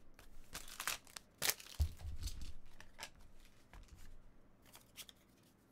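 Trading cards and pack wrapper being handled: crinkling and rustling with a few sharp clicks, and a soft thump about two seconds in.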